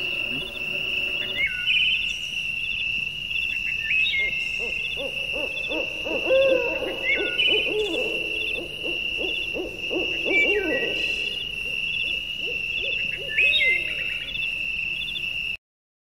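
Animal calls: a high steady trilling tone with a chirp repeating every two to three seconds, and a run of lower, arching hoot-like calls in the middle; it all cuts off suddenly near the end.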